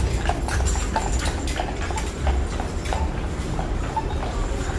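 Horse hooves clip-clopping on street pavement at a steady walk, about three strikes a second, over a low rumble.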